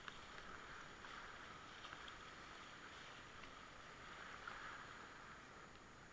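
Faint, steady rush of river rapids around a whitewater kayak being paddled downstream, with a few small clicks and splashes.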